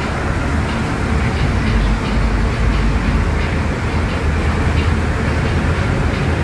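Scania K250UB midibus's five-cylinder Scania DC09 diesel running, heard inside the passenger cabin as a steady low rumble.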